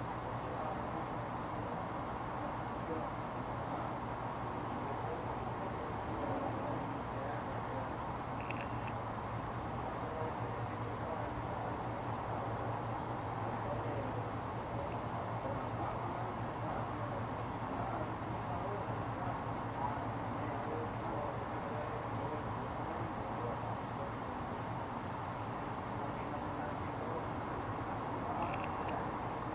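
A steady, high-pitched insect trill that pulses rapidly and evenly without a break, over a low steady hum and an even wash of background noise.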